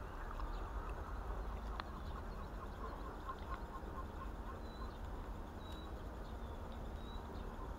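Quiet outdoor ambience: a steady low rumble with faint bird chirps, including a quick run of chirps about two and a half seconds in and a few thin high calls later. A single short click about two seconds in.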